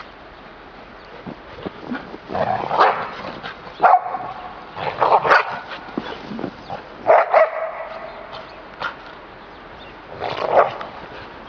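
Barbet dogs barking during rough play, with short bursts of barks every two to three seconds.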